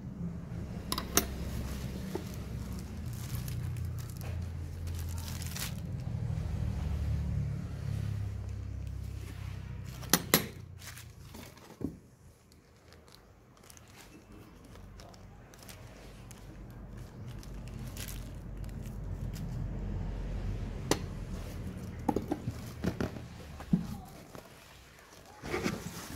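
Hands handling parts and packaging: a clear plastic bag crinkling and tearing, with a few sharp clicks and knocks from handling a metal spanner and parts, over a low rumble.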